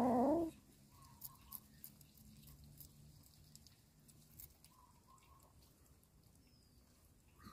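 A cat gives one short, loud cry right at the start, then kittens eat from a plate of rice and fish with faint, scattered clicking and chewing sounds.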